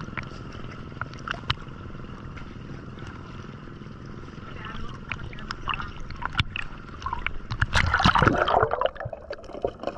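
Sea water lapping and sloshing against a camera held at the waterline, with small splashes and drips. Near the end the camera goes under, and a louder burst of bubbling and gurgling follows.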